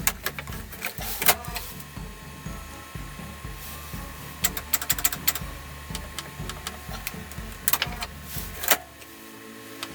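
Sharp clicks and taps, with a quick run of them about four and a half seconds in, over a steady low hum with a regular pulse that drops out about nine seconds in.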